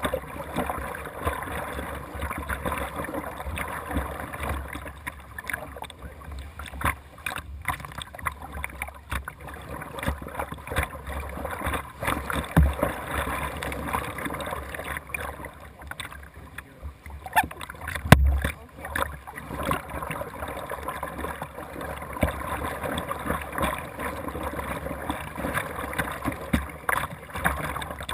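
Paddle strokes splashing and water washing along the hull of a Jackson Dynamic Duo whitewater kayak as it is paddled steadily, with irregular low thumps, the loudest about eighteen seconds in.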